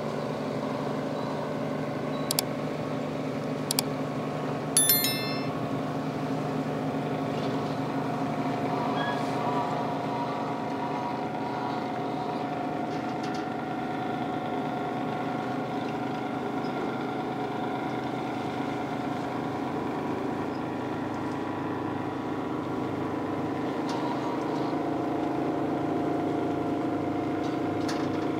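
Boat engine running steadily with an even, pitched drone. A few sharp clicks and a short rattle come about two to five seconds in.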